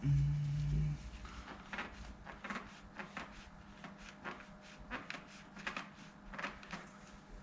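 A steady low hum lasting about a second, then a run of irregular light clicks and knocks as tools and parts are handled.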